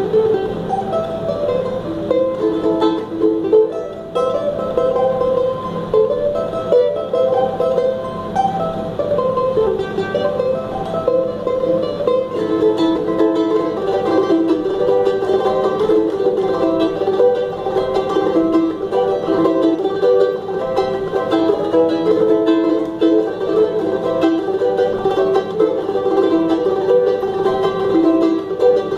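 Charango played solo: a continuous stream of quick plucked notes on its ten paired strings.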